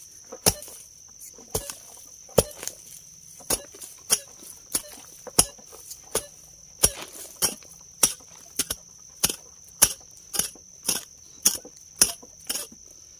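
A hand digging tool striking into soil again and again, about twenty blows at one every half second to a second, digging out a metal detector target. A steady high buzz of insects runs underneath.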